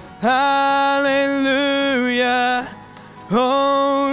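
Male lead vocal singing long, held notes in two phrases, running through a compressor set to fast attack and release, which evens out its level.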